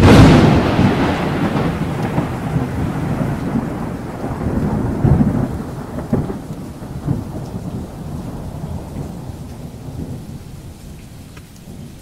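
A close thunderclap heard from inside a car: a sudden loud crack, then a rolling rumble that swells again about five seconds in and slowly dies away. Heavy rain hits the car throughout.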